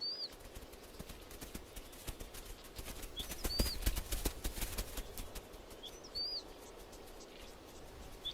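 Hooves of grazing animals, zebras and a wildebeest calf, stepping and shuffling on dry ground as a run of uneven thuds and clicks, heaviest in the middle. A bird gives a short high chirp about every three seconds, three times.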